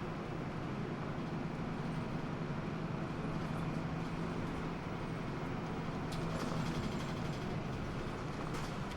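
Interior sound of a Hino Blue Ribbon II city bus under way: a steady diesel engine drone with road noise, heard from inside the cabin. Light clicks and rattles come in from about six seconds in.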